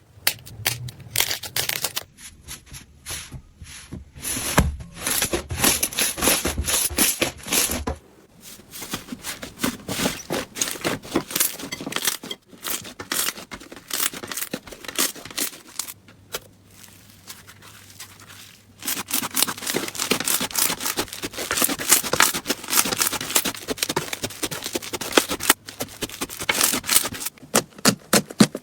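Slime being squeezed and handled, giving dense crackling and popping clicks. The texture changes a few times, at about two, eight and nineteen seconds in.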